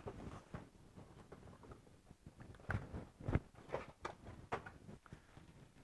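A cardboard box being handled and its flaps opened: faint, scattered rustles and soft taps, a few sharper ones in the second half.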